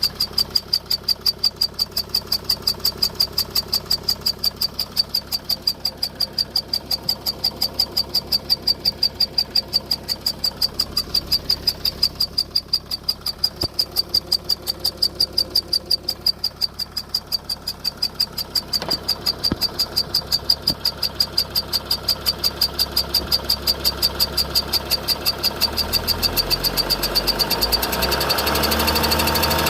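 Mercedes Sprinter van engine running at idle with a sharp, high-pitched squeak from the engine bay repeating evenly about three times a second. In the last few seconds the engine speeds up, and the squeak carries on.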